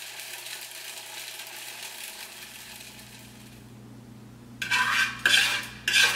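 A utensil scraping and knocking inside a plastic food-processor bowl to get the chopped bacon out: several quick scrapes with clinks, starting about four and a half seconds in. Before that, a soft hiss fades away.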